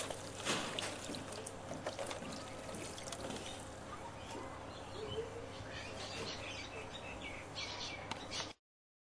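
A wine and brandy mix being poured from a plastic jug over a raw turkey in a foil tray, the liquid trickling and splashing onto the bird and into the tray. The sound cuts off abruptly near the end.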